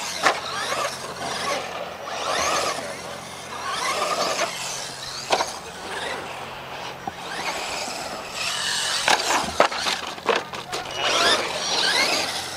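Electric RC monster truck's motor whining as it revs up and drops off again and again, with a few sharp knocks of the truck hitting the dirt.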